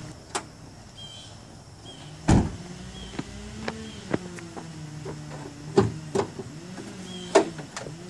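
2000 Dodge Dakota's freshly lubricated hood latch letting go with a single solid thump about two seconds in as the hood pops free, followed by several sharp clicks and knocks as the safety latch is worked and the hood is lifted. A low hum rises and falls underneath.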